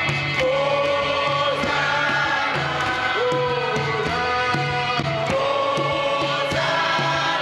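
Church choir of mixed voices singing a hymn in held notes, accompanied by an electronic keyboard with a pulsing bass line and a steady beat.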